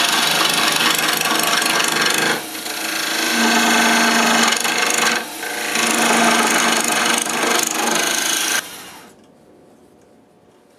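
Gouge cutting spinning cherry wood on a Delta wood lathe: a steady scraping hiss of shavings over the lathe's running hum, dropping briefly twice. The sound stops abruptly about two seconds before the end, leaving only faint room noise.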